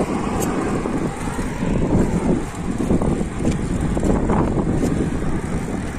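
Wind buffeting the microphone of a phone held by a rider on a moving bicycle: a steady, uneven rush of noise, heaviest in the low range.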